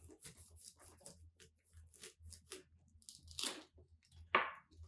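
Large knife cutting through a pineapple's fibrous crown and rind on a plastic cutting board: a run of short crunching, tearing cuts, with a longer cut about three and a half seconds in and a sharper crunch a little after four seconds.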